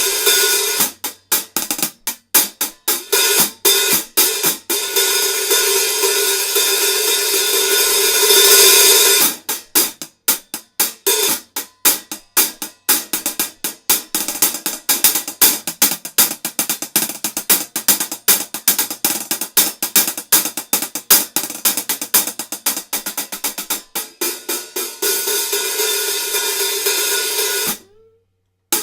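A 14-inch pair of Zildjian K hi-hat cymbals being played: long ringing washes of the loosened hats alternate with quick runs of tight, short strokes. The ringing is cut off sharply near the end, followed by one last short hit.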